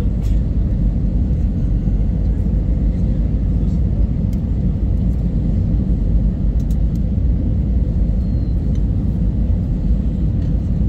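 Steady low rumble of engine and airflow noise inside the cabin of an Airbus A320 airliner on approach, heard from a window seat over the wing, with a faint steady hum above it.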